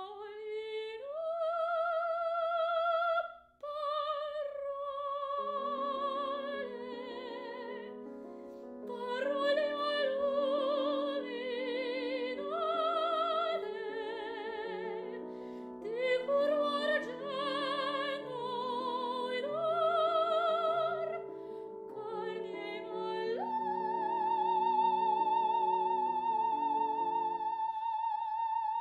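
Operatic soprano singing an aria with vibrato over piano accompaniment, which comes in about five seconds in; the phrase ends on a long held high note.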